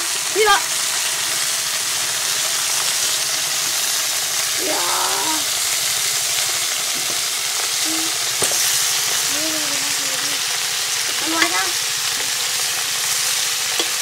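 Skewered meat frying in a metal wok over a gas burner, giving a steady sizzle. A metal ladle stirs in the pan, with a couple of light clicks against the metal in the second half.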